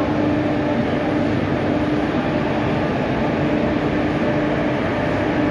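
WAP-4 electric locomotive running close by: a steady whirring hum with a faint held tone that drops out now and then.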